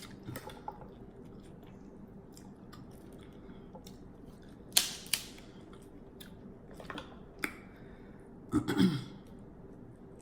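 A person eating seafood close to the microphone: chewing with wet mouth smacks and sharp clicks, the loudest a pair about five seconds in and a short cluster near the end.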